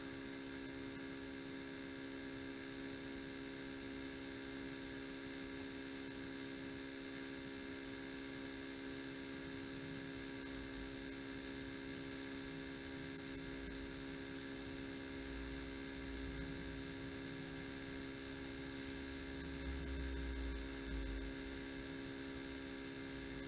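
Steady electrical hum, one tone with several overtones, running under the recording. A faint low rumble comes and goes in the second half.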